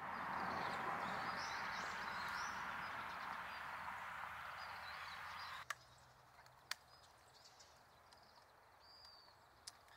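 Outdoor nature ambience: a steady rushing hiss with small birds chirping faintly over it, cutting off suddenly about five and a half seconds in to a much quieter background with a few sharp clicks and a single short chirp.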